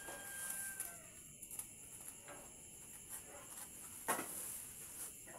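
A metal baking tray is handled at a bakery oven rack, with one loud knock of metal about four seconds in. A rooster's crow trails off faintly in the first second, and a steady high hiss runs underneath.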